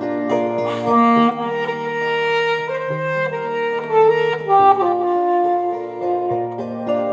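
Alto saxophone playing a slow melody of long held notes, changing pitch about once a second, over a sustained musical accompaniment.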